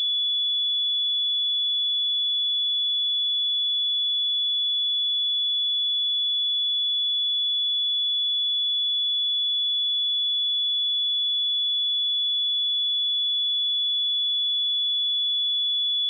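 A single steady 3425 Hz sine-wave test tone, one high pure pitch held at constant level.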